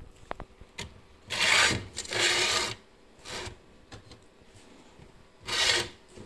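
Rubbing and scraping noise, three bursts of about half a second each: a phone brushing against wet leaves and the terrarium glass as it is pushed in among the plants.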